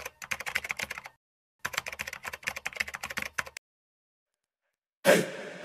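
Typing sound effect: two quick runs of key clicks with a short pause between them. About five seconds in, a sudden loud hit that fades away.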